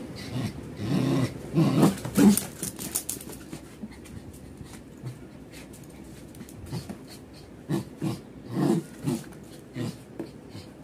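Indian Spitz dog growling in short bursts while tugging on a leash in play. The growls come thick in the first two seconds, ease off, and pick up again around the eighth second.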